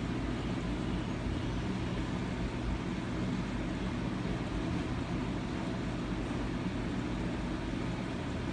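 Steady low rumble with a faint hiss, even throughout, with no distinct events.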